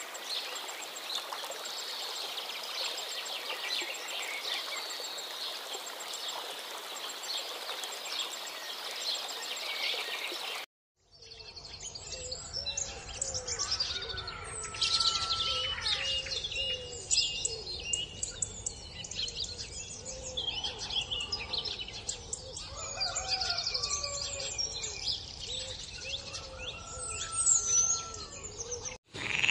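Wild birds calling: a dense chatter of high chirps that cuts off about ten seconds in, then after a brief silence a different stretch of scattered bird calls and whistles, some lower and sliding in pitch, over a faint low rumble.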